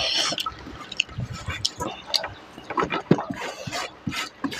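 Wet eating sounds: fingers squishing and mixing rice with pork curry on a steel plate, and mouth chewing with lip smacks, heard as a run of short wet clicks.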